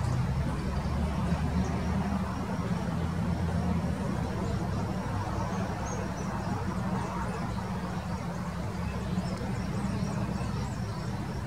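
A steady low mechanical drone, with faint short high chirps scattered through it.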